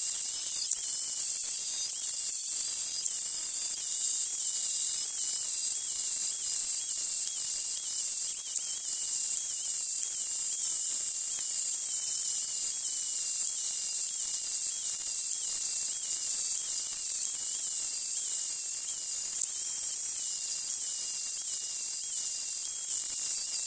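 Makita UC012G 40V cordless chainsaw cutting one thin round after another off a log. It gives a high-pitched whine that dips and recovers in an even rhythm, about twice a second.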